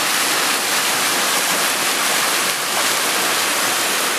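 Waterfall heard up close: a steady, even rush of falling water.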